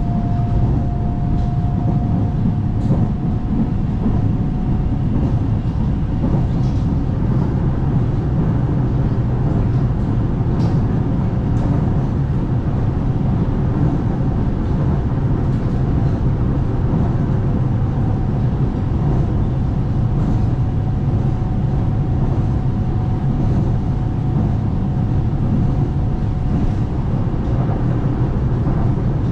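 Dalian Metro Line 12 train running between stations, heard from inside the car as a steady low rumble of wheels on track. A faint steady whine sounds in the first few seconds and again through the second half.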